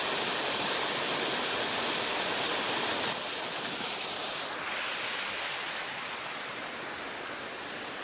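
Small waterfall splashing down a rock face into a pool: a steady rush of falling water. About three seconds in it drops in level and gets softer.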